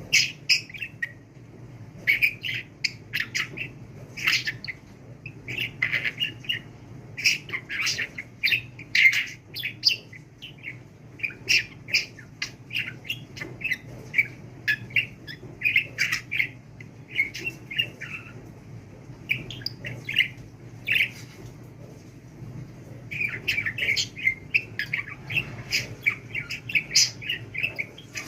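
Pet budgerigar chattering in quick runs of short chirps and squawks, with a brief pause near the end before it starts up again.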